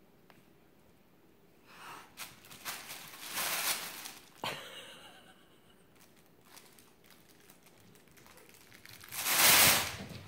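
Intermittent rustling and crinkling. Several soft bursts come in the first half, with a sharp tap about four and a half seconds in, then the loudest rustle, about a second long, near the end.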